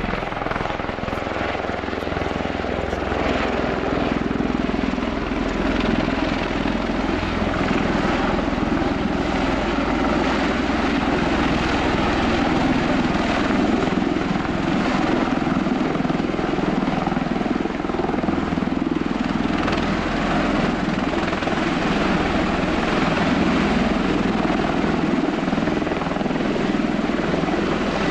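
Bell-Boeing CV-22B Osprey tiltrotor hovering in helicopter mode: its two large proprotors and Rolls-Royce AE 1107C turboshaft engines give a steady, heavy rotor drone, growing a little louder a few seconds in.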